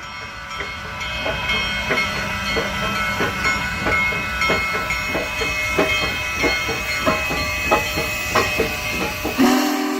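A train running with a steady rumble and hum, crossed by irregular sharp clicks about two a second; a horn starts sounding near the end.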